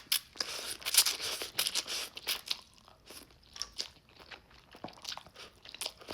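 A person eating roast beef instant ramen close to the microphone. A dense, noisy first mouthful lasts about two and a half seconds, followed by softer, scattered chewing clicks.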